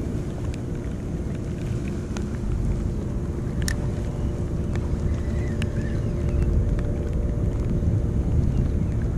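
A boat motor runs steadily under a low rumble of wind on the microphone, with a few light clicks as a spinning reel is cranked.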